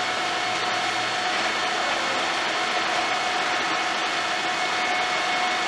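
Steady mechanical hum and hiss with a faint, steady whine, holding an even level throughout.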